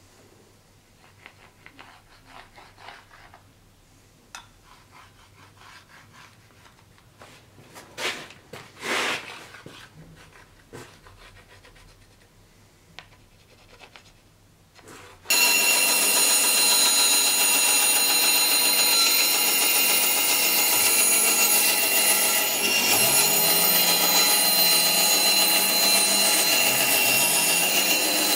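Faint scratching and handling of wooden strips and pencil on a fur pelt, with a louder rustle about eight to nine seconds in. About halfway a bandsaw cuts in, running loud and steady as it saws a wooden board, its low hum sagging briefly a few times near the end.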